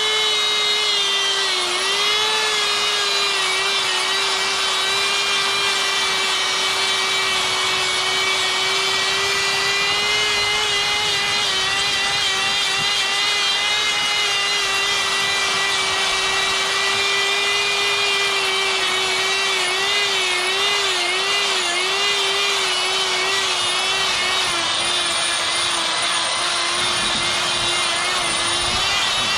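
Electric die grinder with a sphere burr running steadily with a whine as it grinds into the wood of a carved bear's face. Its pitch wavers and drops slightly around two-thirds of the way through as the burr bites in under load.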